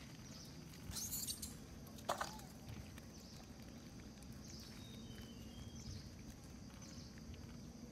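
Faint outdoor ambience: a brief rustle about a second in and a sharp click soon after, then a few short, faint high chirps over a low steady hum.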